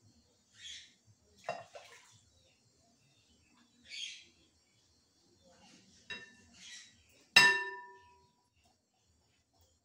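Glass bowl clinking as pudding batter is poured and scraped from one glass bowl into a larger one: a few light knocks and soft swishes, then one loud ringing clink about seven seconds in.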